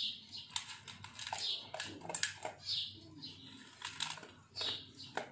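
Dog crunching dry kibble from a metal bowl: an irregular run of crisp crunches and clicks as it chews.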